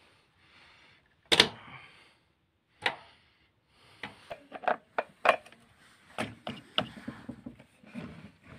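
Handling and assembly noises from a Husqvarna 445 chainsaw's clutch cover and chain-brake parts: sharp clicks and knocks of plastic and metal parts and tools on a wooden board, with one loud knock about a second in and a busy run of clatters through the second half.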